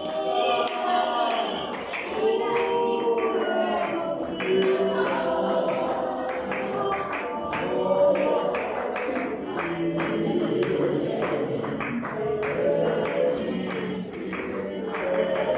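Church choir of men and women singing gospel without instruments, many voices together in harmony, with steady hand-clapping in time.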